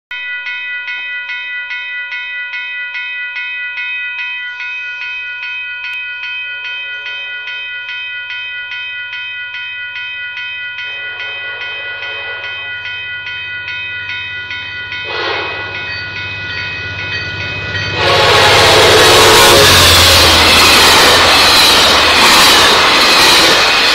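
Railway level-crossing bell ringing steadily, about two strikes a second, as a GO Transit train approaches and its horn sounds. About 18 seconds in the passing train suddenly becomes much louder: a dense rush of wheels on rail with a rhythmic clacking that drowns out the bell.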